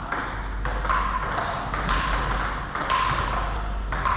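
Table tennis ball in a rally, struck by paddles and bouncing on the table, a sharp ringing click about every half second.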